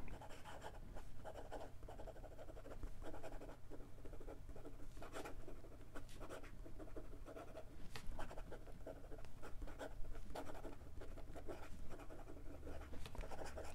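A fountain pen's fine steel nib writing quickly on lined notebook paper: faint, irregular scratching of the pen strokes.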